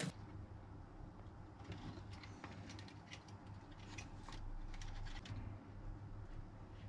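Faint handling noise: light clicks and taps of fingers on circuit boards and a plastic case, over a steady low hum.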